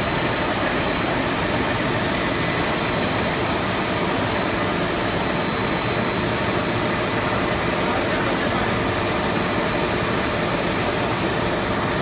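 Cast film extrusion line running: a steady, even machine noise with a few faint high whines in it.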